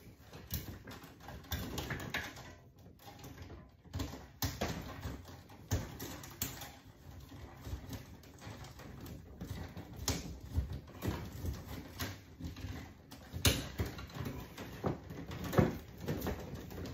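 Irregular clicks, taps and rustling as electrical cables are handled and pulled inside an open breaker panel.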